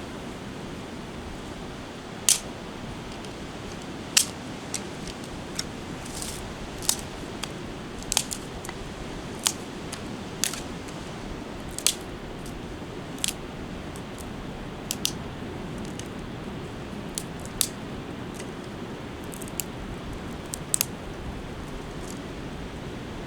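Sliced garlic heating in olive oil in a pan over a wood fire: irregular sharp pops and crackles, roughly one a second, over a steady low rush.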